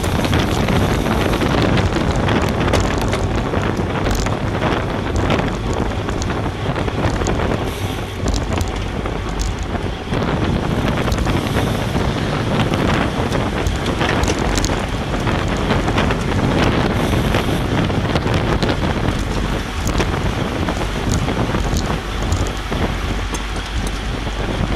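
Steady loud wind rush on a bicycle-mounted action camera's microphone at racing speed, with a few short clicks scattered through it.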